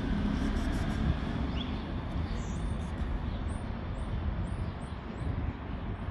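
Steady outdoor background rumble and hiss, with a run of five faint, short high chirps in the middle.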